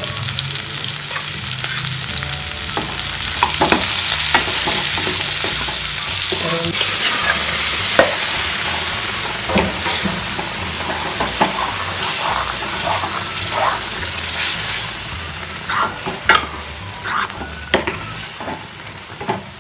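Food frying in oil in a pan, a steady sizzle, with a steel ladle scraping and knocking against the pan as the mixture is stirred. The sizzle fades near the end, where the ladle's scrapes and knocks stand out.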